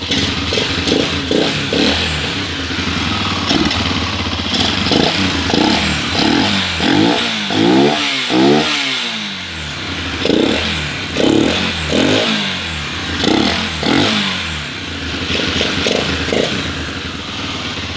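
Yamaha XTZ motorcycle's single-cylinder four-stroke engine revved in repeated quick throttle blips, roughly one a second, pitch rising and falling between them, with the biggest revs near the middle. It runs with the air filter and filter cover removed so the intake sounds louder.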